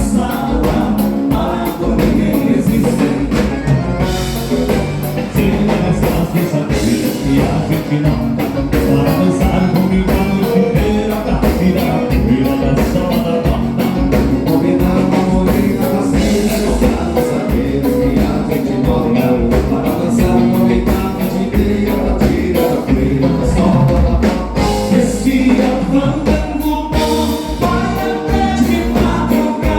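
Gaúcho band playing a bugio, with a singing voice over a steady drum beat.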